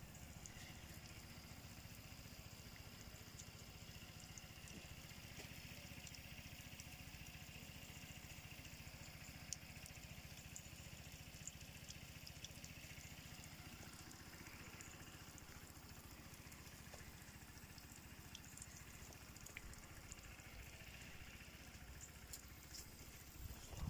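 Near silence: a faint steady low hum with a few small scattered ticks.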